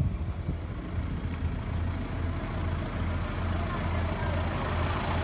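Tractor diesel engine idling, a steady low rumble.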